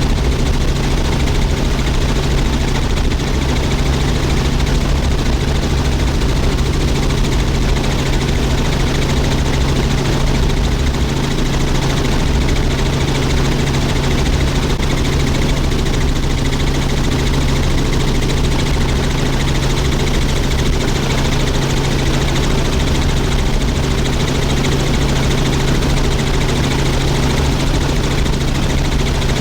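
Helicopter in flight heard from the cabin: a steady, loud engine and rotor drone with a strong constant low hum.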